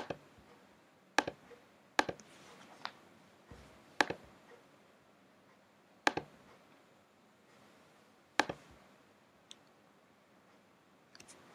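Single sharp computer mouse clicks at irregular intervals, about nine of them, with faint room tone in between.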